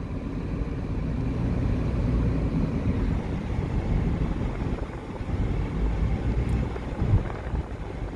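Car driving along a road, heard from inside the cabin: a steady low rumble of tyres and engine.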